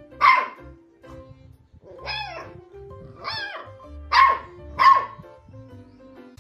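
A puppy barking five short, high barks spread across a few seconds; two of them arch up and then down in pitch. Background music plays underneath.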